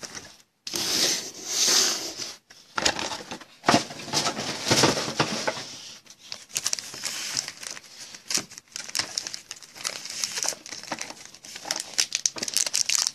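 Foil-wrapped football card packs crinkling and rustling as they are handled, on and off, with small taps in between.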